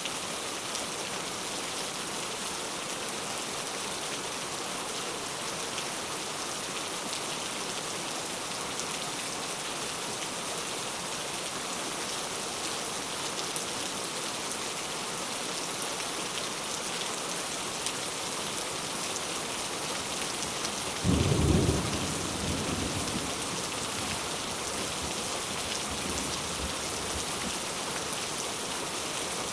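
Steady rain, with a sudden low rumble of thunder about two-thirds of the way through that dies away over a few seconds.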